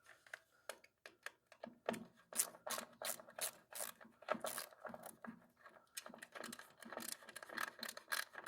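Hand tools and small metal parts being handled during disassembly: irregular clicks, taps and scrapes.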